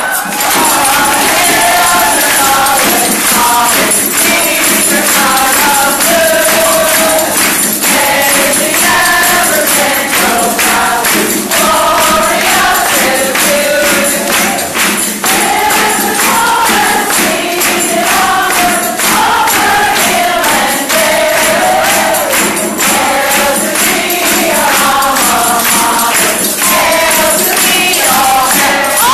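A large group singing together in unison, with strummed ukuleles, hand drums, maracas and tambourines keeping a steady beat, and people clapping along in time.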